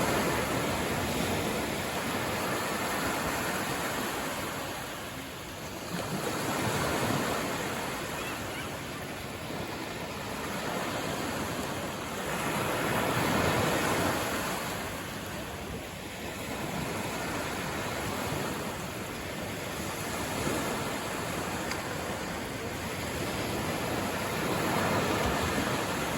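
Sea waves breaking and washing up a sandy beach, the surf swelling and fading about every six or seven seconds.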